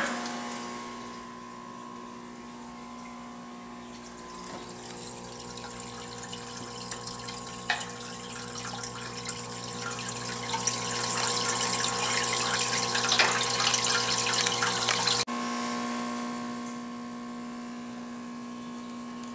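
Aquarium pump humming steadily under the hiss of moving water, which grows louder through the middle, with a few light knocks, then stops abruptly about fifteen seconds in, leaving only the hum.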